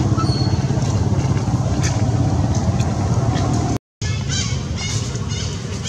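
A steady low rumble, cut off briefly to silence about four seconds in. After the break, a quick series of short, high chirps falling in pitch sounds over the rumble.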